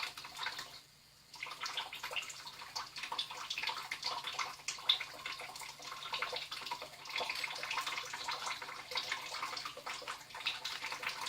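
Kitchen tap running onto a dish being scrubbed in the sink, with water splashing and spattering off it. It breaks off briefly about a second in, then carries on.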